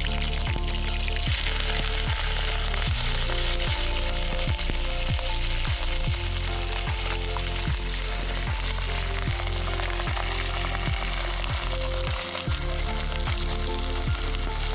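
Raw chicken pieces sizzling as they fry in hot refined oil in a steel kadai, being stirred with a wooden spoon. Background music with a steady beat plays under the sizzle.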